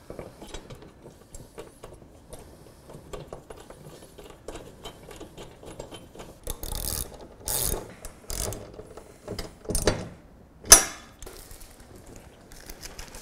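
Hand tool ratcheting in quick fine clicks as screws are driven in to fasten mounting brackets to a flat-panel display. Several louder scraping rustles come in the second half, and one sharp knock about three-quarters of the way through.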